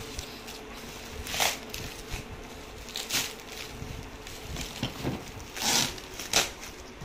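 Plastic wrap crinkling and a cardboard box rustling as it is handled and set down, in four short bursts, the longest just before the end and a sharp one right after it. A faint steady hum runs underneath.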